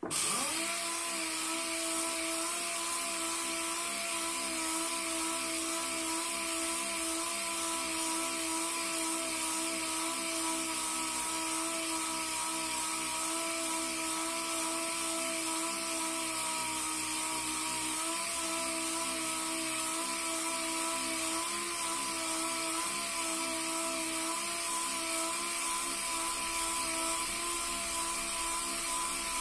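Random orbital sander sanding a round wooden dowel: it starts abruptly, runs steadily with a whine over a strong high hiss, and cuts off at the very end.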